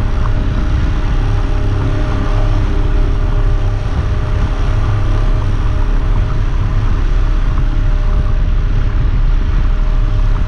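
Boat engine running steadily at trolling speed, a constant low drone with wind and water noise over it.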